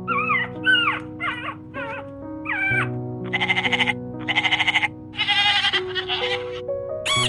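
A few short cat meows falling in pitch, then several long quavering bleats from a sheep or goat, over background music with held notes.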